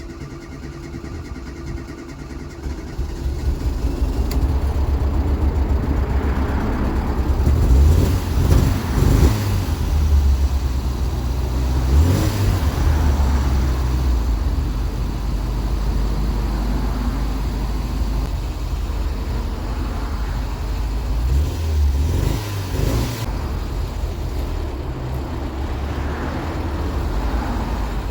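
1990 Ford Fiesta Mk3 engine starting and running with its rear exhaust silencer removed, revved briefly several times. The car has a rough-running, won't-idle problem, and this is the first run after new HT leads and a spark plug were fitted.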